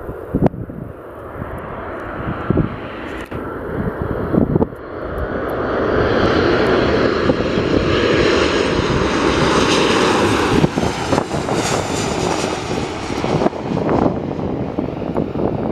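Boeing P-8 Poseidon's twin CFM56 turbofan engines growing louder as the jet comes in to land, loudest as it passes close with the pitch sliding down, then easing off. Wind buffets the microphone throughout.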